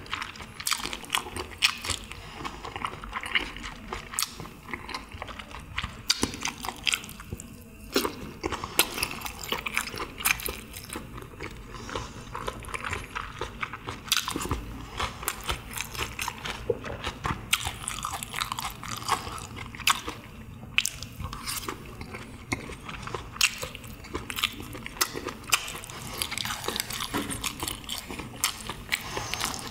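Close-miked chewing of chewy pressed meat (pyeonyuk): irregular wet smacking and sharp crunchy clicks from the mouth, continuing steadily.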